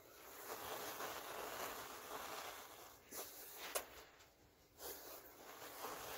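Crumbly chunks of dry white powder falling from a hand into a plastic tub: a soft, gritty pouring hiss in two spells, with a couple of sharp ticks between them.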